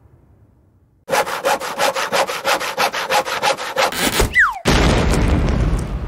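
Cartoon "saw and fall down" sound effect. A handsaw rasps through wood in quick even strokes, about six a second, for some three seconds. A short falling whistle follows, then a heavy crash that rings out as the sawn piece comes down. It is preceded by the faint fading rumble of the previous bomb-explosion effect.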